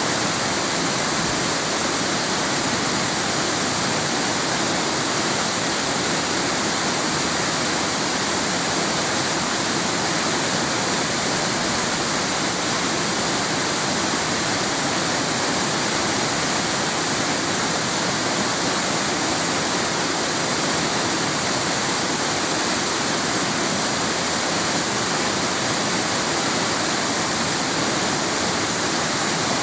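Waterfall: rushing, falling water making a loud, steady roar with no change.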